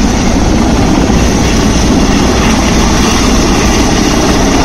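Large twin-turbine transport helicopter of the Mi-17 type flying low on its landing approach: a loud, steady rotor and turbine noise.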